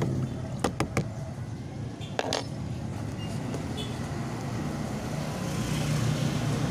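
Steady low rumble of road traffic and a running vehicle engine, with a few sharp clicks about a second in and a short clink just after two seconds.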